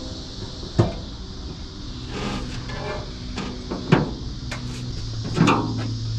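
A few sharp metal clicks and knocks from hands and a test lead working on the rusty engine bay of a 1954 Ford F250, as a lead is grounded and the ignition coil is checked for power. A low steady hum comes in about halfway through.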